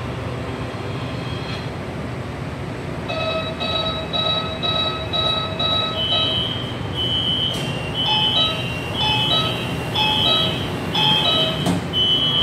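Metro train door-closing warning on a Shenzhen Metro Line 11 train: a run of beeps, about two a second, for some three seconds, then a higher two-tone signal repeating as the sliding saloon doors close, with a knock near the end as they shut. The stationary train hums steadily underneath.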